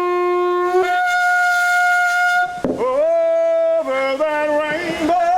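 Conch shell blown as a horn in loud, sustained blasts. A long steady note is followed by a brief break, then a note that scoops up in pitch and holds, then a few shorter notes at shifting pitches, and near the end a note whose pitch wavers.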